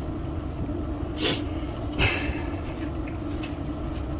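Steady low rumble of a gas burner on high under an empty iron wok that is being heated until it smokes. Two short soft rushes come about a second and two seconds in.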